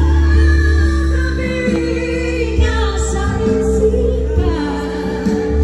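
Music: a song with a singing voice over held bass notes.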